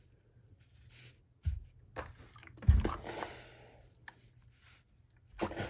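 Dull thumps of a clothes iron being set down on a padded pressing mat, the loudest a little before the middle, followed by about a second of soft hissing as it presses the folded fabric.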